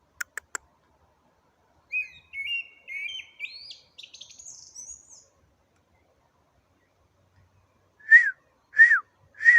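A songbird singing. First comes a warbled phrase of short notes that climbs steadily higher, then, near the end, three loud separate whistles, each sliding downward. Right at the start there are three quick clicks.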